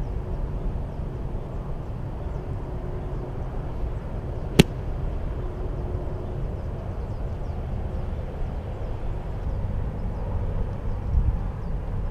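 A golf club strikes a ball off a tee mat: one sharp crack about four and a half seconds in, over a steady low rumble.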